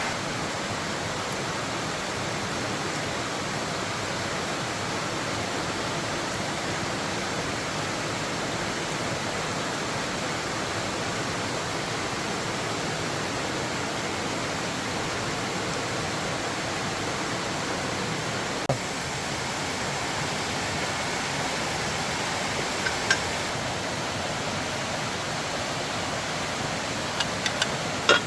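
A steady, even rushing noise with no changes in level, broken by a few sharp clicks, most of them near the end.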